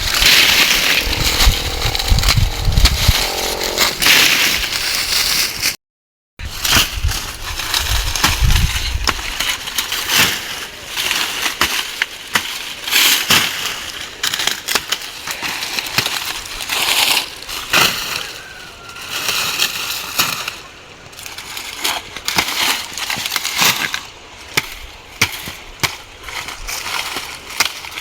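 Dry maize stalks and leaves crackling, rustling and snapping as the plants are cut down and handled, in irregular bursts, with some low thumps in the first few seconds.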